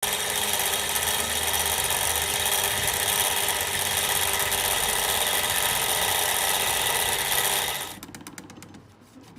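Mazda 6 engine bay with the engine running and making an abnormal noise: a loud, steady, high-pitched mechanical noise that drops away about eight seconds in, leaving a quieter rapid ticking.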